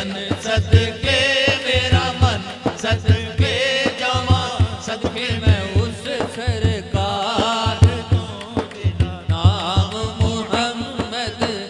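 Men singing a naat, a devotional song in praise of the Prophet, into microphones. The melody wavers and is held in long phrases over a steady low beat.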